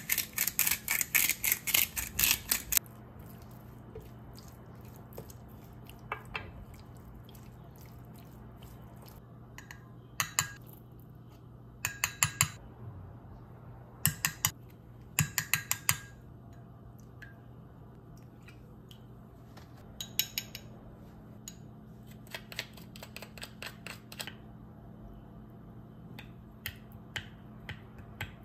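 A white measuring spoon and a small spatula clink against a small glass bowl as a sauce is spooned in and stirred, in short clusters of light clinks. It opens with a rapid run of sharp clicks, about five a second, lasting nearly three seconds. A faint steady hum sits underneath.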